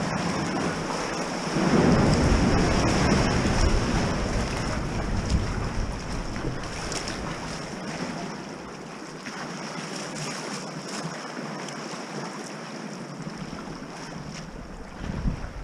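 Sea water sloshing and surging around a sea kayak and against rock as it is paddled out of a sea-cave tunnel, with wind buffeting the microphone. A louder surge comes about two seconds in; the low wind rumble drops away for a few seconds after the middle.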